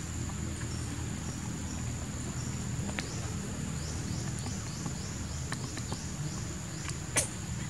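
Outdoor ambience: a steady high-pitched insect drone over a low rumble. A quick run of about six short chirps comes around four to five seconds in, and a few sharp clicks sound, the loudest a little after seven seconds.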